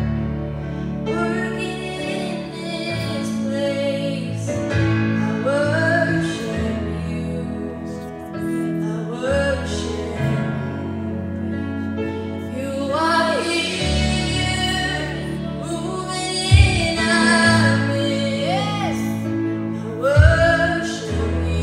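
A small group of women singing a gospel worship song into handheld microphones over instrumental accompaniment with sustained low notes. There are two brief loud hits in the last few seconds.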